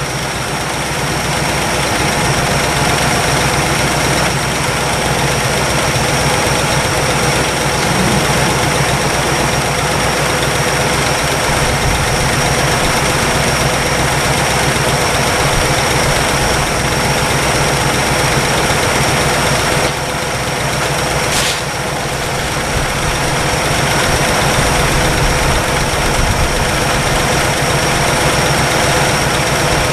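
1962 Chevrolet engine idling steadily as it warms up after sitting 35 years, with a light valve-train tick that the owner puts down to valve clearance or a lifter tick. A brief sharp click about two-thirds of the way through.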